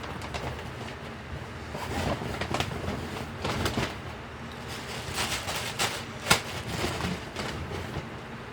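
Rustling and crinkling of a bag and packaging being handled, irregular crackles with one sharper crackle about six seconds in.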